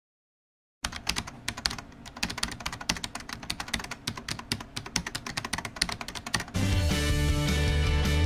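Rapid, irregular keyboard-typing clicks start about a second in. At about six and a half seconds they give way to louder rock music with a heavy bass line and guitar.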